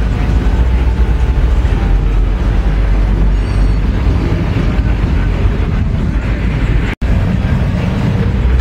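Loud, steady low rumble of vehicles, cutting out for an instant about seven seconds in.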